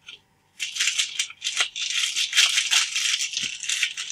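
Foil trading-card pack wrapper crinkling and rustling in the hands, a dense crackle that starts about half a second in and keeps on.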